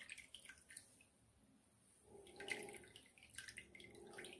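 Coconut milk being squeezed by hand out of ground coconut in a cloth: faint wet splashing and dripping into a bowl in two spells, a short one at the start and a longer one from about two seconds in.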